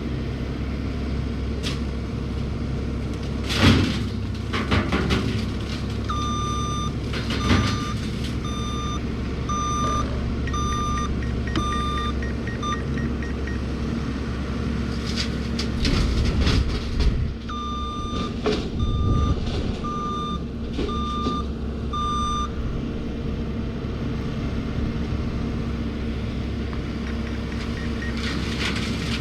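A 72-inch tree shredder (forestry mulcher) on a John Deere 333E skid steer running steadily under load, with several sharp crashes as wood is shredded. A drone's warning beeps repeat at about two a second in two stretches.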